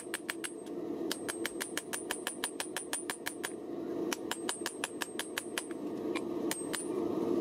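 Hand hammer striking a hot damascus blade on a small anvil: rapid blows, about five a second, in runs with short pauses, each blow ringing high. A steady rushing noise runs underneath.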